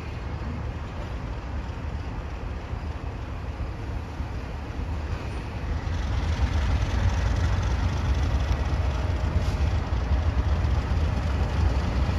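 ALCO diesel locomotive running with a deep, steady rumble that grows louder about halfway through as it draws nearer.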